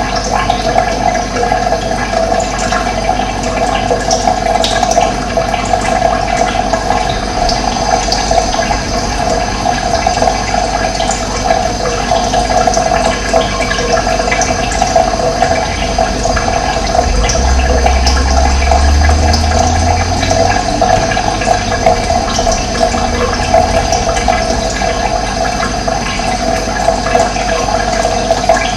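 Running water flowing steadily, a constant loud rush, with a low rumble for a few seconds around the middle.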